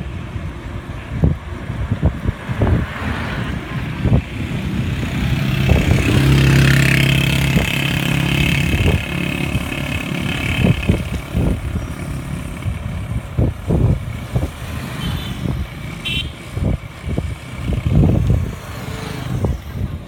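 Wind buffeting a bicycle-mounted microphone while riding, with irregular low thumps. A motor vehicle's engine passes, swelling about six seconds in and fading by about eleven seconds.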